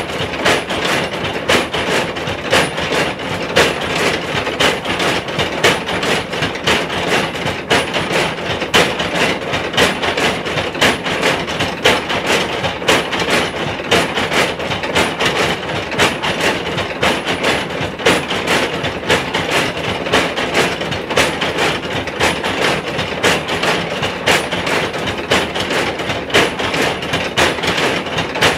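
Motor-driven stamp mill pounding dried red chili pepper, its row of pestles rising and falling into the mortars. It keeps up a steady, fast knocking rhythm that sounds like a train running.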